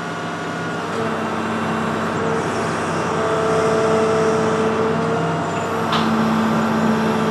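Link-Belt 2800 excavator's diesel engine and hydraulics working as the boom is raised. Steady tones come in about a second in and the sound grows gradually louder as the machine takes up the load.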